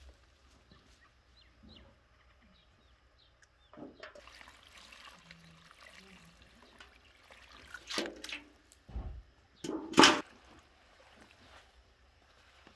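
Water pouring from a galvanized metal bucket onto rose petals in a plastic basin, starting about four seconds in. Around eight to ten seconds in come a few louder splashes and knocks, the loudest near the ten-second mark.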